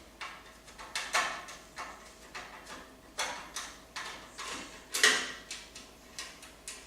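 Screwdriver backing screws out of a steel computer case: a string of short, irregular clicks and ticks, roughly two a second.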